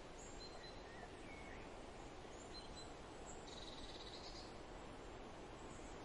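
Faint outdoor nature ambience: a steady low hiss with a few short, high bird chirps, and a rapid high trill lasting about a second, a little past the middle.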